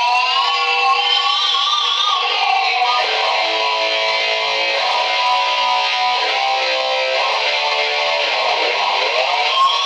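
Dean Dimebag 'Dixie Rebel' electric guitar played loud, its notes gliding up in pitch at first, then held steady, then swooping down and back up near the end.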